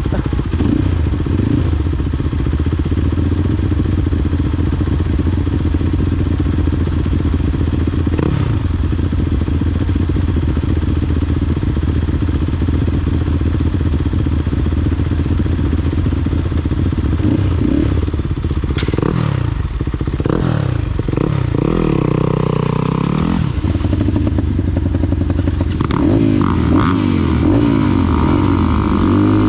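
Off-road trail motorcycle engine running at low revs, revved up and down several times in the second half.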